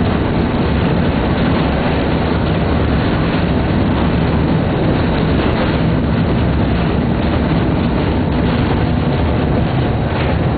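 Vintage electric tram in motion, heard from inside the wooden car: a steady rumble of the running car and its wheels on the rails.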